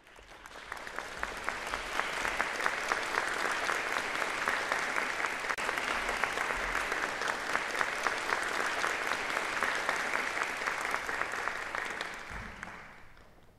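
Audience applauding in a concert hall. The applause swells over the first couple of seconds, holds steady, and dies away near the end.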